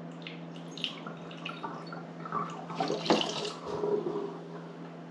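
Liquid poured from a stainless steel bowl through a funnel into a bottle, trickling and splashing unevenly.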